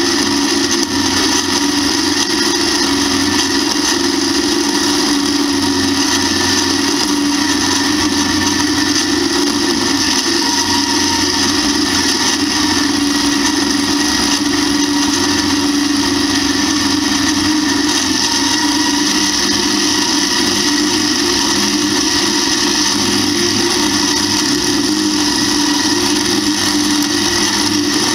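1952 Allis-Chalmers WD's four-cylinder engine running steadily under load, loud and unbroken, together with the whir of its mounted two-row corn picker working through the corn rows.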